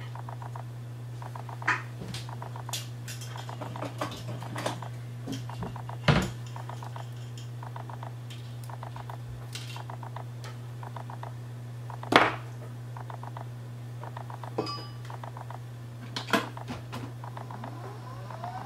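Small metal tools clicking and clinking on a workbench during hand soldering: scattered sharp clicks, the loudest about 6 and 12 seconds in, and short runs of rapid rattling ticks, all over a steady low hum.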